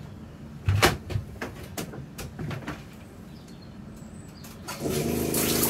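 A knock and a few light clicks, like a door or cupboard being handled. Near the end, the boat's Jabsco Par Max 3 freshwater pump starts with a steady hum and water begins to rush as the shower is turned on for its first test.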